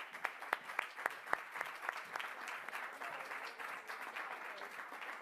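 Crowd applauding. Several loud, distinct claps stand out in the first two seconds over a dense patter of clapping.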